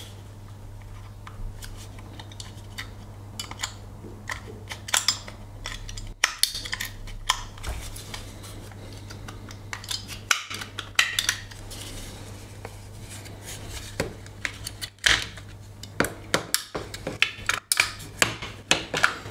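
Handling noise from a plastic remote control and small metal battery cells: irregular clicks and taps, some in quick clusters, over a steady low hum.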